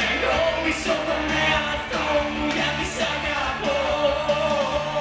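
Loud live pop music with a singer's voice over the band, heard from within the audience.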